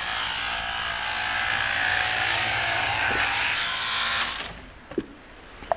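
Electric sheep-shearing handpiece running, its comb and cutter buzzing steadily as it cuts through the fleece on a long blow. The buzz stops abruptly about four seconds in, followed by a couple of faint knocks.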